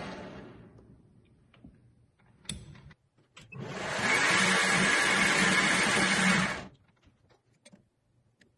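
Metal lathe running, turning a small metal pin: it winds down in the first second, a few light clicks follow, then it runs again steadily for about three seconds and stops abruptly. Faint taps and clicks near the end as the part is handled for measuring.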